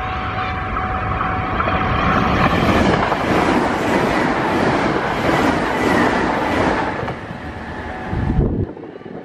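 Sanyo Electric Railway express electric train passing at speed close by: a loud rushing of wheels on rail with a faint motor whine, swelling as the cars go by and dropping away about seven seconds in as the last car clears. A brief gust of wind hits the microphone near the end.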